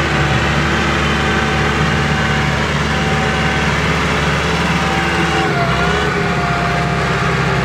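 Kubota RT140 single-cylinder diesel engine running steadily, pulling a plow.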